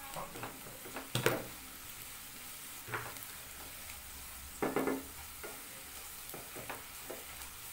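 Wooden spatula stirring and scraping an onion-and-spice masala around a non-stick frying pan, over a steady low sizzle as the masala fries in oil. The scrapes come every second or two, the loudest about a second in and just before five seconds.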